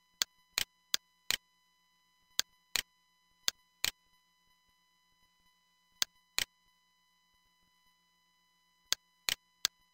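Computer mouse button clicks: about a dozen short, sharp clicks in irregular pairs and small groups, with a gap of about two seconds in the middle. A faint steady whine sits underneath.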